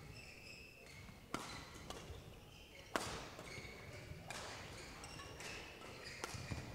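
Badminton rally: sharp cracks of rackets striking the shuttlecock, roughly every second and a half, with short squeaks of court shoes on the floor between the shots.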